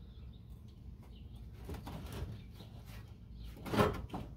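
Faint clicks and handling noises from work under a car, with one short, louder noise about three-quarters of the way through.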